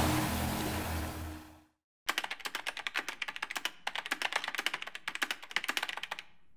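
The tail of an intro whoosh with a low rumble fades out over the first second and a half. After a brief silence, rapid computer-keyboard typing clicks start about two seconds in, many keystrokes a second with short pauses.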